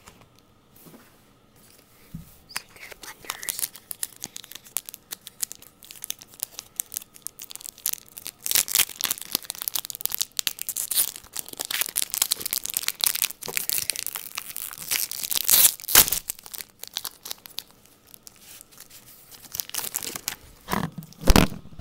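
Foil wrapper of a Pokémon card booster pack being torn and crinkled open: a long run of dense crackling that starts a couple of seconds in and is loudest in the middle, with a few duller knocks near the end.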